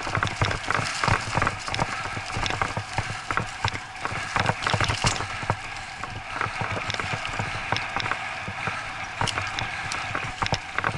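Bicycle ridden fast over a rough dirt forest trail behind a pulling dog. Irregular rattles and knocks come from the bike over the bumps, over a steady rushing noise of tyres on dirt and leaves.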